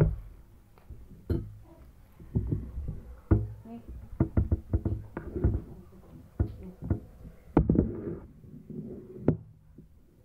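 A plastic cup set down on a wooden table with a sharp knock, then a metal spoon tapping and scraping in a plastic food tub in irregular clicks and knocks while someone eats.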